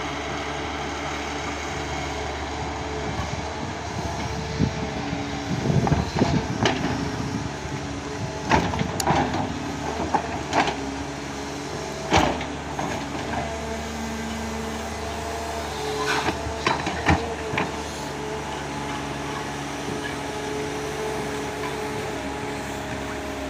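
Caterpillar 320D hydraulic excavator working: its diesel engine runs steadily under a hydraulic whine that shifts in pitch as the boom and bucket move. Several sharp metallic clanks from the bucket and linkage digging into soil come through the middle stretch.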